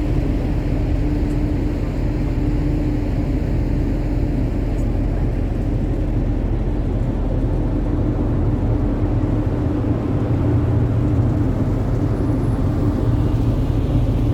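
Passenger ferry under way: a steady low rumble of its engines and machinery with a constant hum underneath.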